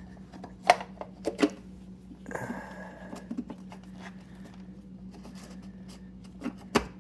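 Sharp plastic clicks and knocks from handling an oil filter cartridge and its plastic housing cap while setting the cartridge down into the housing: a few taps within the first second and a half, a short rustle about two and a half seconds in, and one more click near the end, over a steady low hum.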